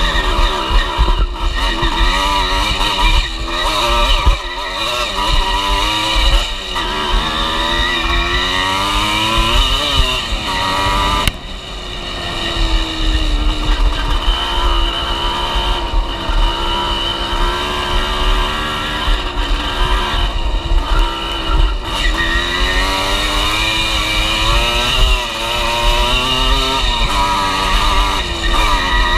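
Enduro dirt bike engine running hard on a trail ride, its pitch rising and falling over and over as the throttle opens and closes and the rider works through the gears. About eleven seconds in the engine note drops away abruptly, then builds again.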